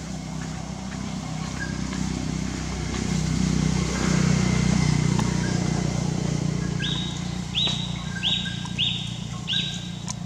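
Outdoor ambience of a low droning hum that swells in the middle. Near the end come five short, high-pitched animal calls in quick succession, each starting sharply and dropping slightly in pitch.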